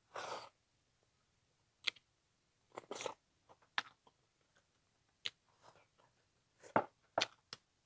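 Close-up mouth sounds of a person eating a mouthful of turmeric-braised frog and rice: about ten scattered chewing smacks and clicks with quiet gaps between, starting with a short, longer rustle as the food goes in.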